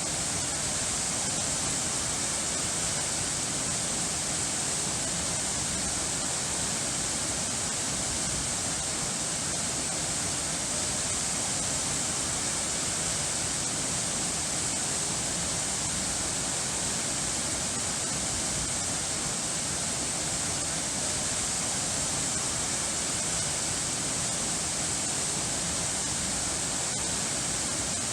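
Steady rushing water, like a waterfall or fast stream, an even hiss with no change.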